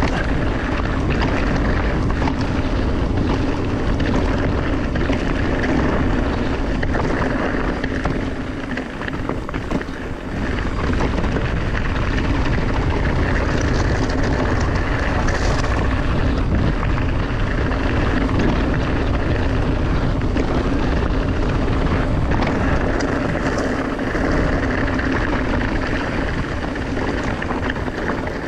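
Mountain bike on the move: steady rolling tyre noise with wind on the camera microphone, easing briefly about nine seconds in.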